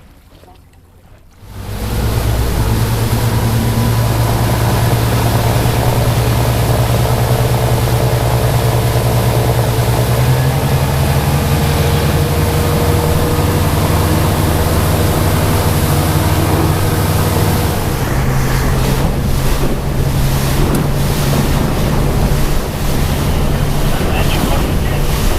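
Motorboat engine running under way, its steady hum shifting pitch twice, over rushing water and wind buffeting the microphone. The sound starts suddenly about a second and a half in.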